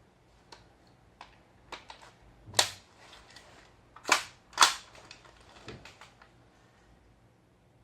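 GHK OTs-14 gas blowback airsoft rifle on green gas firing three single shots, sharp cracks with a short tail, the last two about half a second apart. Fainter clicks come before and between the shots.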